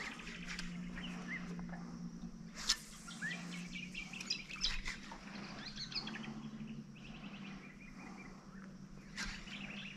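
Birds chirping and trilling in the mangroves, over the steady low hum of an electric trolling motor holding the boat on spot lock. There is a single sharp tick a few seconds in.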